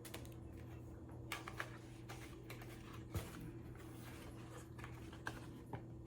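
Scattered light clicks and taps from cardboard parts of a cat scratcher kit being handled and sorted, about half a dozen over the stretch, with a sharper tap about three seconds in, over a faint steady hum.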